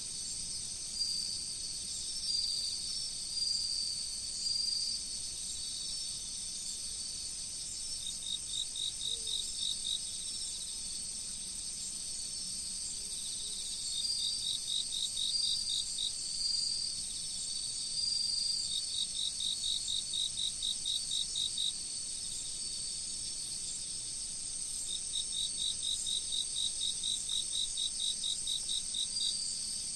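Chorus of autumn insects, crickets among them: a steady high-pitched trilling, with runs of lower chirps at about four or five a second that come and go every few seconds.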